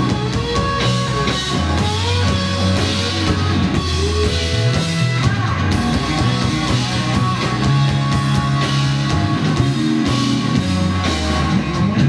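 Blues-rock band playing live and loud: an electric guitar lead with bent notes over drums and held low notes.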